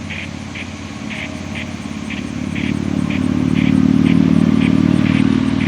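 Sentry 10V outdoor warning siren sounding a steady alert tone, swelling louder about halfway through as its rotating head turns toward the listener. A faint high chirp repeats about twice a second.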